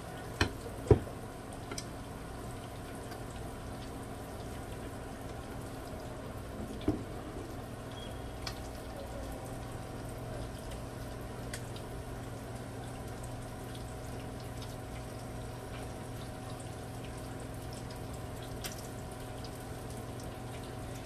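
Breaded tilapia fillets sizzling steadily in hot oil in a skillet, with small crackles and a steady hum underneath. Sharp knocks sound twice about half a second and a second in, and once more about seven seconds in.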